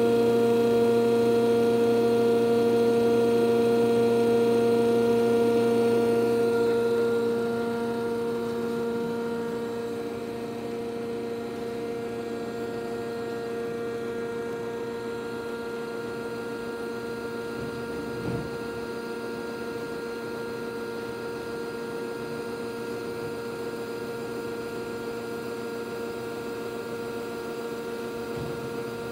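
Air Systems TA-3 Twin Air breathing air compressor's 120-volt electric motor and pump running with a steady, even-pitched hum. It drops in loudness about seven to ten seconds in and then holds steady, with a faint knock or two later on.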